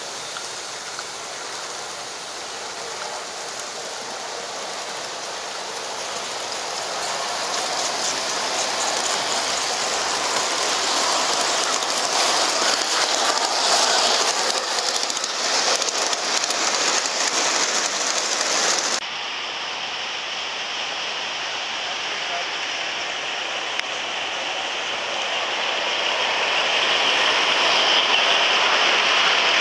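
Large-scale garden railway trains running past on outdoor track: a steady rushing noise that swells as a train comes close. It cuts off abruptly about two-thirds of the way through and gives way to another passing train, which grows louder toward the end.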